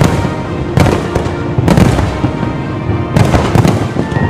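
Fireworks going off: dense crackling with louder bangs at irregular intervals, roughly one a second.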